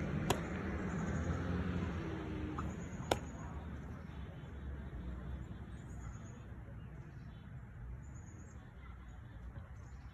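A baseball pops sharply into a leather catcher's mitt just after the pitch is released. About three seconds later comes a second, similar sharp pop. A steady low outdoor rumble and faint short bird chirps run underneath.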